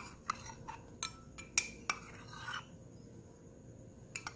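A metal spoon clinking and scraping against a pan several times as ginger is mixed in with the pineapple. The clinks come in the first two seconds, then ease off, and another clink comes near the end.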